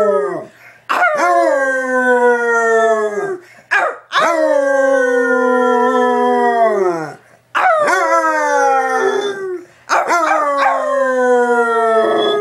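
Basset hound howling: a run of about four long howls, each held on one pitch and then sliding down at the end, with short pauses for breath between.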